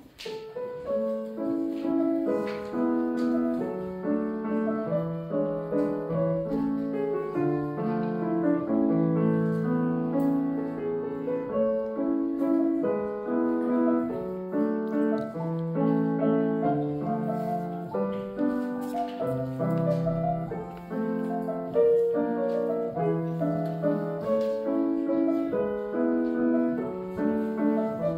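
Grand piano played solo: a steady flow of notes and chords, mostly in the middle range, starting right at the beginning.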